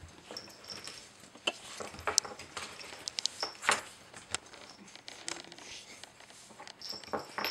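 Wooden pegs and sliding pieces of a Nina Ottosson Dog Fighter puzzle toy clicking and knocking irregularly as a puppy noses and paws at them, with a few sharper knocks in the middle.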